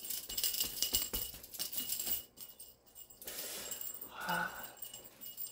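A small handheld cat toy being shaken, with light jingling and rattling clicks, busiest in the first two seconds. A brief voice sound comes about four seconds in.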